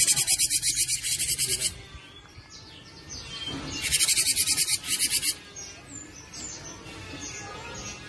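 Cinereous tit (gelatik batu) giving fast, harsh chattering trills of quickly repeated high notes, in two loud bursts of about a second and a half each, then softer short notes.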